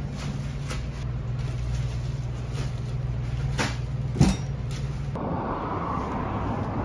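Steady low hum inside a butcher shop, with a few light clicks and one sharp thump about four seconds in. About five seconds in it gives way to a wider outdoor hiss of street traffic.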